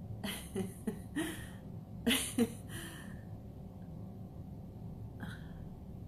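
A woman laughing in short breathy bursts for about three seconds, loudest about two seconds in, then one short breath a little after five seconds.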